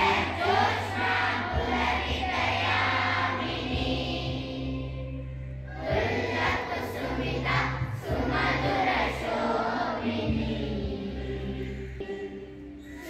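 A large group of schoolchildren singing together in chorus, in sung phrases with a brief lull about five seconds in.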